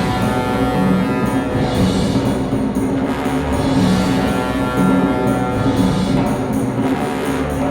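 Orchestral film score with drums and timpani, loud and continuous.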